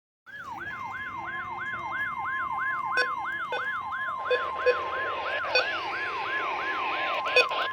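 NOAA Weather Radio 1050 Hz warning alarm tone, a steady high beep, being sent as a test of the public warning system. Over it a siren-like alarm sweeps down in pitch about three times a second. Static hiss builds from about halfway through, with a few faint clicks.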